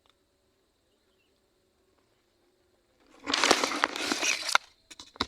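A faint steady insect drone, then about three seconds in, loud rustling and crackling for about a second and a half, like something being handled among dry material. A few short knocks follow near the end.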